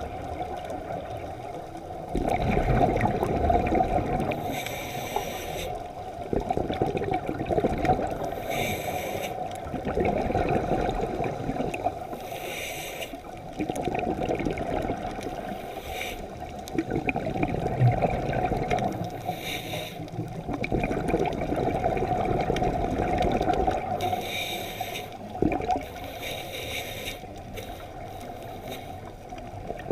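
Scuba breathing heard underwater: a diver's regulator with bursts of exhaled bubbles gurgling past every few seconds, over a steady underwater wash.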